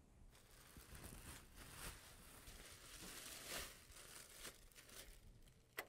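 Faint crinkling and rustling of a clear plastic bag as it is pulled down off a printer, swelling twice, with a sharp click near the end.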